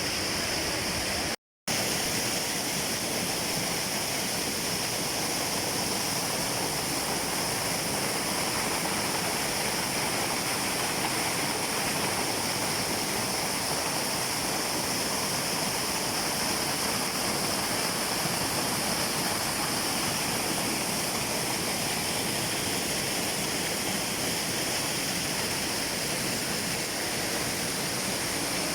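Rushing water, a steady even rush, cutting out for a split second about a second and a half in.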